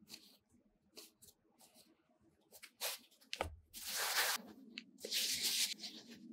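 Hands shaping soft bread dough into a ball on a floured mat. Light pinching and squishing of the dough are followed by a dull knock, then two longer rubbing swishes as the ball is rolled in circles under a cupped hand.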